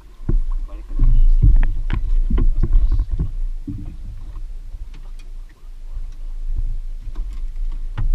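Irregular knocks and thumps on a small open boat's hull as gear is handled aboard, over a steady low rumble of wind on the microphone and water against the boat.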